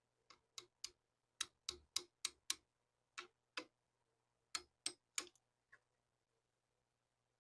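About fourteen sharp clicks and taps in short irregular groups, from small parts being handled during work on the pistol.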